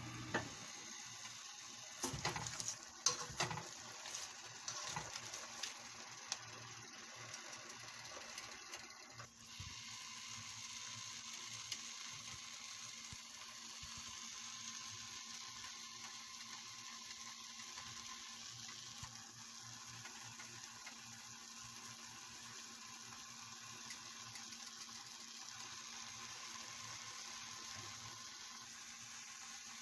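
Shrimp and kangkong sizzling in a wok, with a few clatters of a utensil against the pan in the first several seconds, then a steady frying hiss as the leaves wilt.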